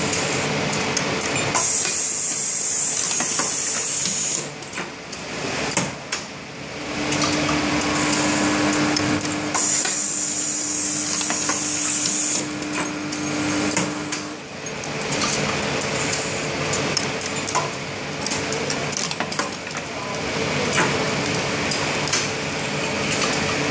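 Automated assembly machine for small metal bellows running, with steady clicking and clatter of parts along its feed track. Compressed air hisses twice for about three seconds each, and a steady hum runs underneath.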